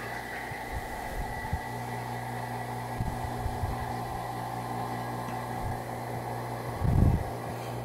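Small electric vacuum pump running with a steady hum as it pulls a vacuum on a stainless steel vacuum pot of jarred dry food. A few light knocks come about three seconds in, and a heavier low thump comes near the end.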